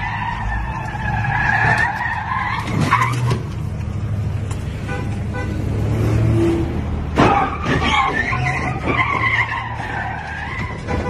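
Car tyres squealing as a sedan spins its wheels in a smoky burnout, over the low running of its engine. The squeal fades out about three seconds in, leaving the engine, and starts again about seven seconds in.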